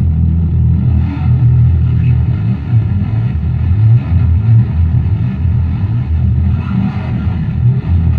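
Modified Silvertone fretless bass guitar played through bass effects and an Ampeg BA-115 amp: a low, continuous bass line whose notes change every fraction of a second, with little high end.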